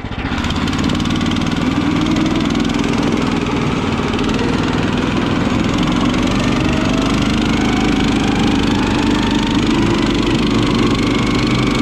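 The 13.5 hp four-stroke Briggs & Stratton engine of a Tinger Dog Pro motorised tow sled runs steadily under load while pulling along a snowy trail. A faint whine rises slowly in pitch over the second half.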